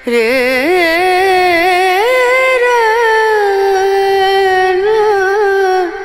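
Music: a single ornamented melody line of long held notes with a wavering, sliding pitch, stepping up about two seconds in and held for most of the rest.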